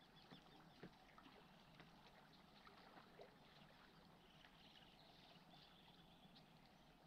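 Near silence: faint outdoor ambience with scattered small ticks and a few faint high chirps.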